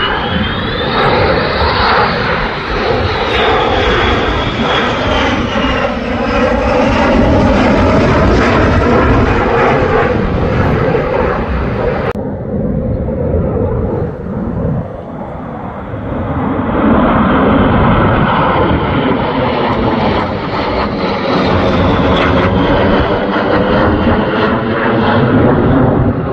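Twin-engine F-15 fighter jet flying past, its engine noise loud with a high whine falling in pitch. The sound cuts off abruptly about twelve seconds in, then another jet's noise swells up and stays loud to the end.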